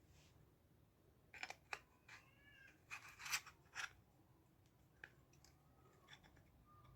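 Faint clicks, taps and short scrapes of small speaker parts being handled and fitted back together, with a brief faint squeal a couple of seconds in.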